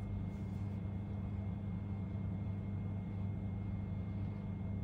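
Steady low hum with a faint, thin high tone over it, unchanging throughout: background room noise.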